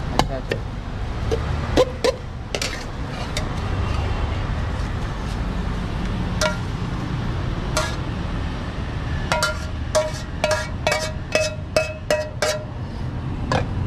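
Metal spatula clinking and scraping against a metal frying pan: scattered single knocks, then near the end a quick run of about a dozen ringing taps, about three a second, as the omelette is knocked off the pan onto a plate. A steady low rumble runs underneath.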